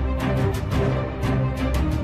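Background music with a steady percussive beat over sustained chords.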